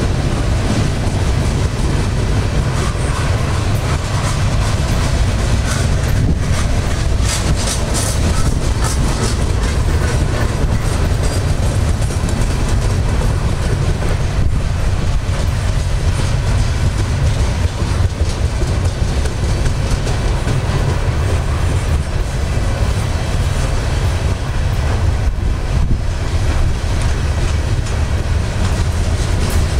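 Freight train of container cars rolling past close to the track: a loud, steady rumble of wheels on rail with the clickety-clack of wheels over rail joints.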